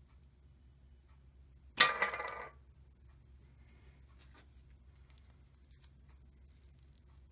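A shot from a popsicle-stick rubber-band catapult hits an aluminium soda can: one sharp clank about two seconds in, with a short metallic ring that dies away in under a second.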